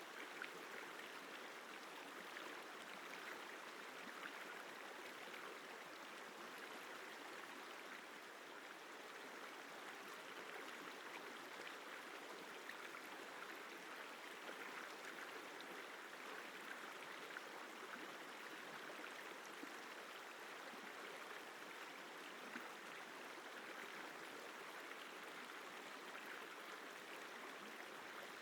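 The Isar River flowing: a steady, even rush of water with no breaks or changes.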